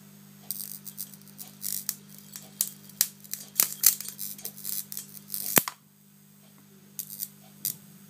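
High-voltage electric arc across a vacuum fluorescent display, fed by 240 V AC with about 5 kV superimposed, crackling in rapid, irregular sharp snaps, with a steady low hum underneath. The crackling stops a little before six seconds in, then two more snaps follow.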